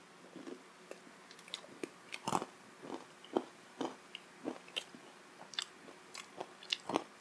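Close-miked chewing and biting of a crisp deep-fried syaphaley, a pastry filled with minced meat: irregular sharp crunches and clicks, the loudest about two seconds in and again near the end.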